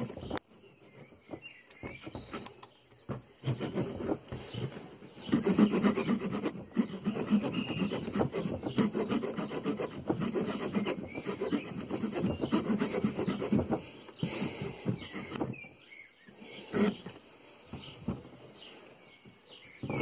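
Multitool's small folding saw blade cutting a thin dry branch by hand, with quick back-and-forth rasping strokes. The sawing is light at first, steadiest and loudest from about five seconds in until about fourteen seconds, then thins to a few scattered strokes.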